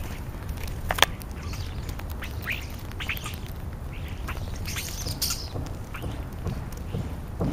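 European starlings calling: short squawks and bursts of high chatter, with a sharp click about a second in.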